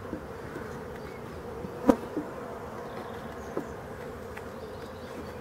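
Honeybees buzzing steadily around an open hive super, with one sharp knock about two seconds in and a couple of lighter taps as wooden frames are handled.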